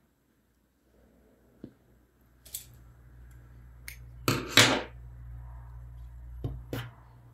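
Small metal scissors handled and snipping: a handful of sharp metallic clicks, the loudest two close together about halfway through.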